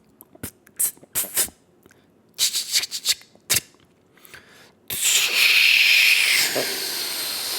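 Homemade mouth sound effects: a string of short clicks and puffs, then from about five seconds in a long, loud hiss.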